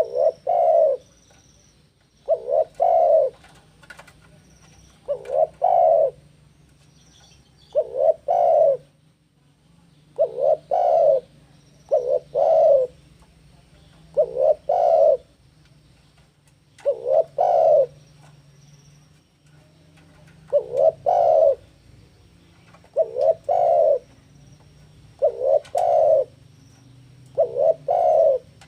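Spotted dove (tekukur) cooing over and over, each phrase a quick run of two or three coos, repeating about every two and a half seconds.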